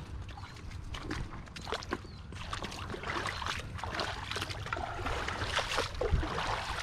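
Water splashing and sloshing in irregular small splashes, getting busier and louder about two and a half seconds in.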